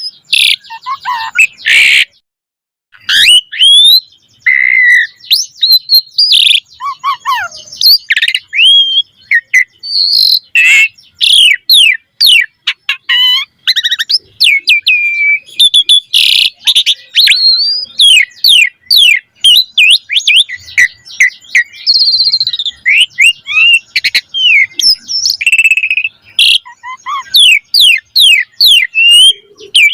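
Asian pied starling (jalak suren) singing a loud, rapid, varied song of whistles, chirps and quick up-and-down sweeping notes, with a short break about two seconds in. The song is the vigorous full-voiced kind that is packed with mimicked phrases.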